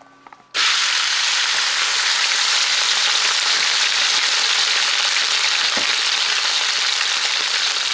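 Sliced raw meat hitting hot rapeseed oil in a wok: a loud sizzle starts suddenly about half a second in and then runs on steadily as the meat sears.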